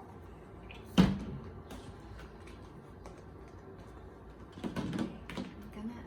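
A single sharp knock on a hard surface about a second in, then a few softer knocks and rustles near the end.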